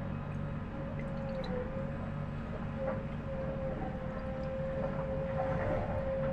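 A steady hum holding one tone, wavering slightly about a second and a half in, over a low drone, with a few faint clicks.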